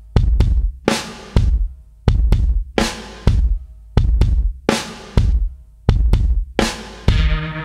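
Background music: a steady drum-kit beat of kick and snare. Sustained bass and chords join about seven seconds in.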